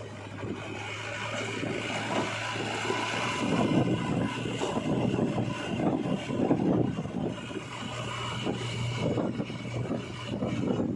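Heavy diesel machine engine running steadily, with wind buffeting the microphone and heavier rumbling over the middle stretch.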